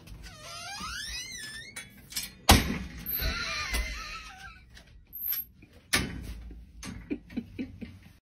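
A dog's high, wavering whine that slides down and back up, followed by a metal pet gate clattering: two loud bangs a few seconds apart and a quick run of lighter knocks near the end.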